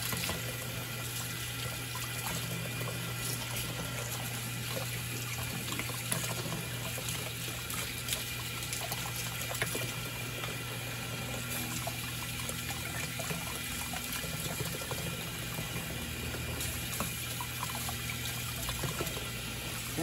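Kitchen faucet running steadily as small humidifier parts are rinsed of descaling vinegar under it, the water splashing into a plastic tub in a stainless steel sink.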